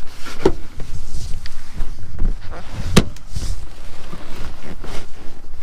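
Folding rear seat of a Ford F150 SuperCrew cab being released with its lever and lifted back up: a knock about half a second in and a sharp latch click about three seconds in, with a few fainter knocks over a steady low rumble.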